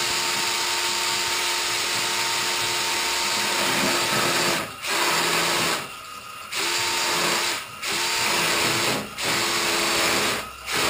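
Cordless drill spinning a Clog Dog flex shaft with chain knockers inside a kitchen sink drain line to scour the pipe clean. The drill runs with a steady whine and stops briefly about five times, the longest pause about six seconds in.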